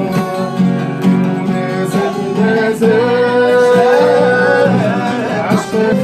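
Live song: a voice sings long held notes over a strummed acoustic guitar.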